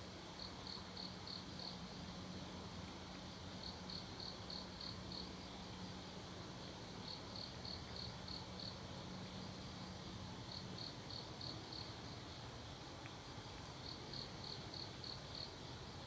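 An insect chirping in short, rhythmic bursts of about six pulses, each burst repeating roughly every three and a half seconds. Underneath runs a low steady hum that stops about two-thirds of the way through.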